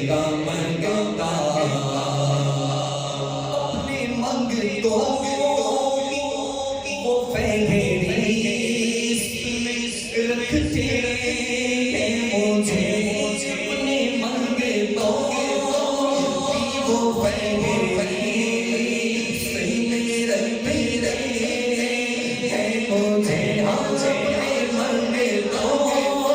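Unaccompanied devotional singing of a naat, a voice drawing out long melodic lines through a PA system with an echo effect.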